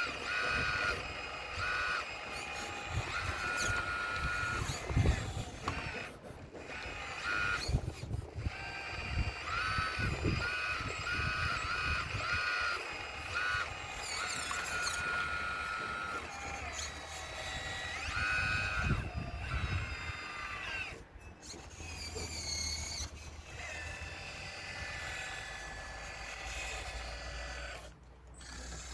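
RC model excavator working: its electric motors whine in short spurts, starting and stopping as the arm and tracks move, among irregular knocks and thuds of stones.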